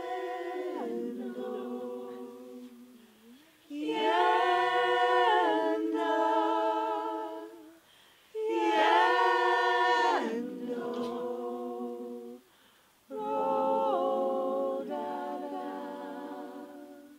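A small group of women singing unaccompanied in harmony, in four long phrases of held notes with short breaks for breath between them.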